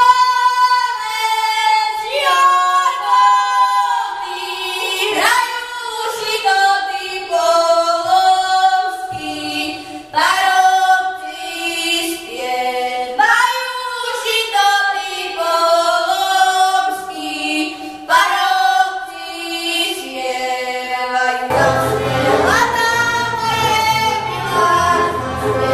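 A group of children singing a song without accompaniment. About 21 seconds in, their band of violins, accordion and double bass comes in.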